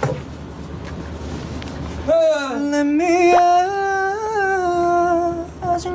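A voice holding one long sung note for nearly four seconds, starting about two seconds in, with slight wavering in pitch. Before it, only a low hum of room noise.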